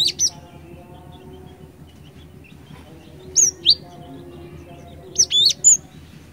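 Cinereous tit calling in loud clusters of short, sharp, high notes that sweep down in pitch: a group at the start, two notes about three and a half seconds in, and three more near the end, over a faint steady background.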